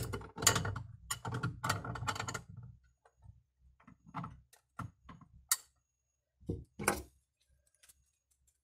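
Handling noise: a quick run of small clicks and knocks for about the first two and a half seconds, then a few scattered single clicks.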